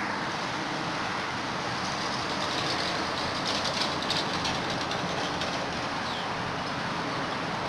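Steady rushing background noise, with a faint fine clicking patter between about two and five seconds in.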